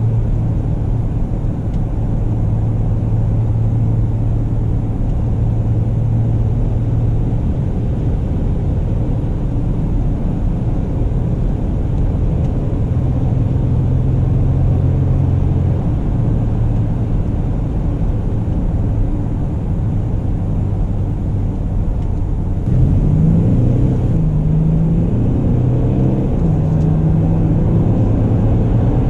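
A 2018 Mercedes-Benz GLE Coupe driving, with a steady low engine hum and road noise. About three-quarters of the way through it grows a little louder, and the engine note steps up and down as the car pulls harder.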